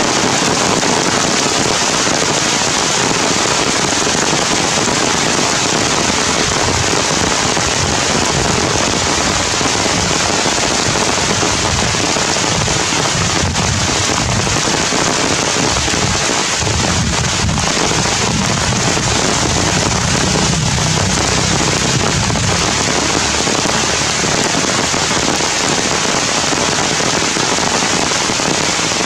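Heavy rain falling steadily on forest canopy leaves, a loud, even patter. A low rumble swells underneath for several seconds past the middle.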